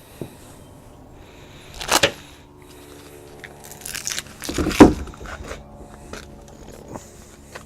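Crackling, rustling handling noises, loudest about two seconds in and again around four to five seconds in, with a few small clicks between.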